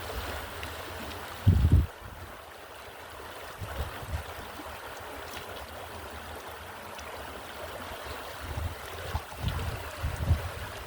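Water running in a stream with wind; gusts buffet the microphone as low rumbling thumps several times, the loudest about a second and a half in.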